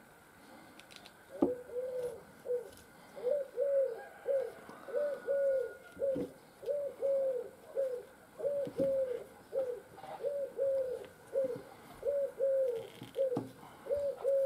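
A dove cooing: a repeated three-note phrase, two fuller notes and a shorter third, about every second and a half.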